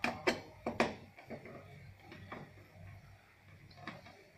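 Small metallic clicks and knocks of a hand screwdriver and screws against a TV's metal chassis and main board as the board's screws are worked. Four sharp clicks come in the first second, then a few fainter taps.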